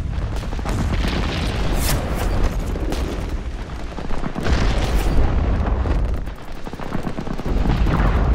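Battle sound effects: dense gunfire and booming explosions over a deep continuous rumble, easing briefly about six seconds in, with a quick run of shots near the end.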